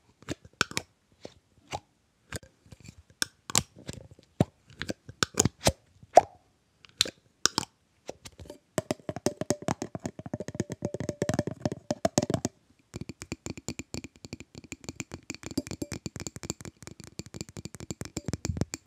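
Fingernails tapping on a glass jar with a metal lid: single sharp taps spaced out for about eight seconds, then fast, continuous tapping with a ringing note under it, pausing briefly and starting again.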